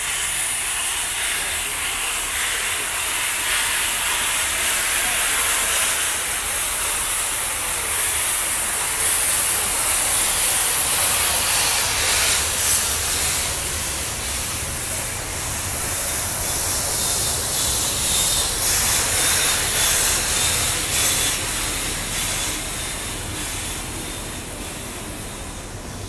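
AD60-class Beyer-Garratt steam locomotive 6029 passing with steam blasting from its open cylinder drain cocks, a loud continuous hiss, followed by a low rumble as its carriages roll by on the rails. The sound eases off near the end.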